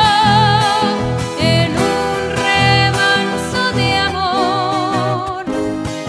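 A woman singing a ballad in long, held notes with wide vibrato, gliding between pitches, accompanied by two acoustic guitar-type instruments plucked and strummed.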